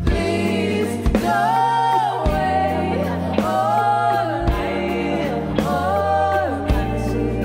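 Live recording of a song: a woman sings three long, wavering held notes over a steady bass line, with a few light drum hits.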